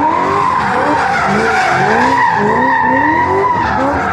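Drift car sliding sideways with its tyres squealing in a steady high screech. Its engine revs rise and fall over and over, a couple of times a second.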